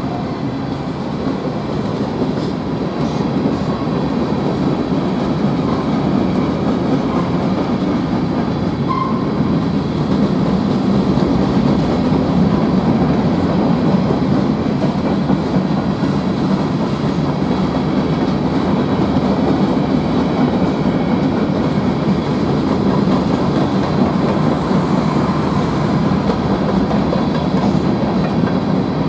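Freight train cars rolling past at speed: a loud, steady rumble of steel wheels on rail, swelling a little over the first few seconds and then holding even, with faint wheel clicks over the rail joints.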